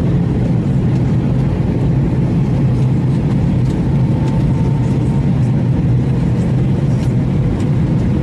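Airliner cabin noise during the final descent: a steady, loud low rumble of the jet engines and rushing air, with a faint steady hum above it.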